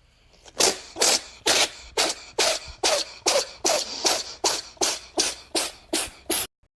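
A cat sneezing over and over in a rapid fit, about fifteen short sneezes at two to three a second.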